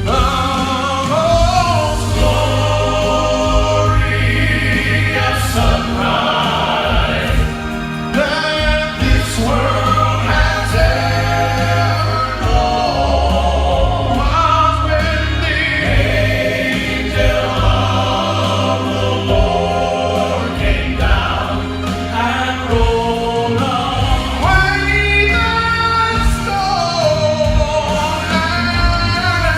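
Music: a vocal quartet singing a gospel song in harmony, voices with vibrato, over an instrumental accompaniment with sustained low bass notes.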